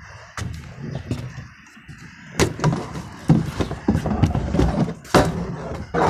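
Handheld phone being carried and jostled: rustling and bumping against the microphone, with several sharp thumps, the loudest a little over two seconds in and about five seconds in.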